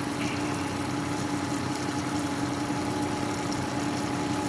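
Boat's outboard motor running steadily at low revs: an unchanging engine hum.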